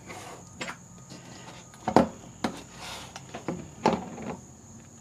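Kitchen handling sounds: a handful of separate knocks and clicks, the loudest about two seconds in.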